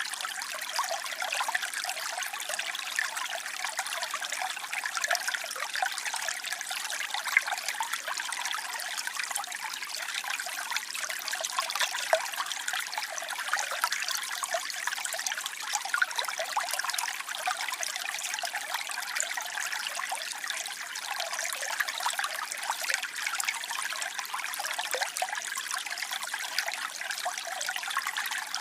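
Waterfall: water falling and splashing in a steady, even rush with small flickering splashes and no deep rumble.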